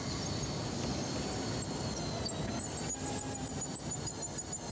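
Power drill running steadily with a long bit boring through the mounted elephant's hide at the tusk socket, drilling for the pins that hold the new fiberglass tusk. A steady whine sits over a grinding noise.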